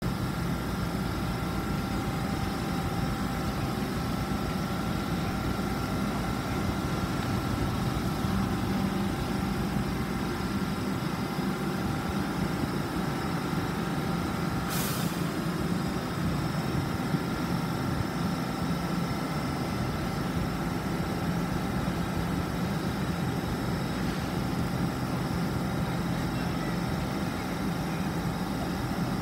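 LNER Class 800 Azuma train standing at the platform, giving off a steady hum and drone from its onboard equipment. There is one brief sharp click about halfway through.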